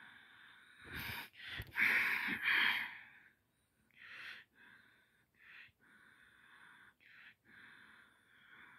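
Breathing close to the microphone: a louder burst of breath about one to three seconds in, then softer, separate breaths.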